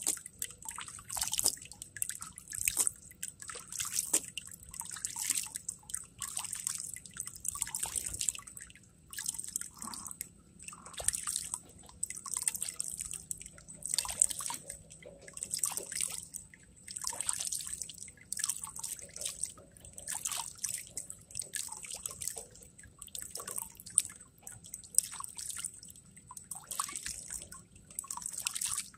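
Water splashed by hand over a plastic gold pan and dripping back into a bucket below, in repeated irregular splashes and trickles, as the concentrate in the pan is washed down.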